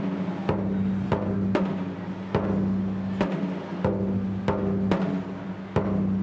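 Japanese taiko drums struck in a driving rhythm, a sharp hit roughly every half second, over a sustained low tone.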